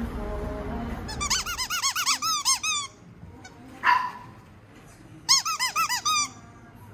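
A small dog yipping in two quick runs of high-pitched, rising-and-falling cries, with a single sharp yelp between them.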